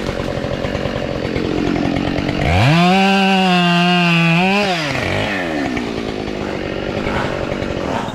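Two-stroke chainsaw running, revved up sharply to full throttle about two and a half seconds in, held there for about two seconds, then dropping back to a lower speed.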